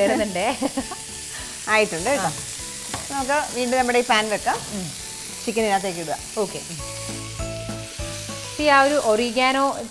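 Spiced chicken pieces sizzling in oil in a frying pan as they are stirred with a silicone spatula, then tipped into a second pan of sautéed onion, capsicum and tomato about eight seconds in. Voices come over the sizzle at times, loudest near the end.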